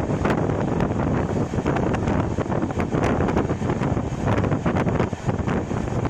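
Running noise of an express train's LHB coach at speed: a steady rumble of wheels on track with frequent irregular clicks and rattles, and wind buffeting the microphone.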